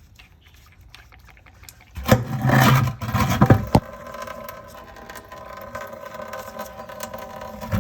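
Opening the water drain on a diesel fuel filter housing: a loud scraping, clattering burst about two seconds in, with a few sharp clicks, followed by a steady mechanical hum.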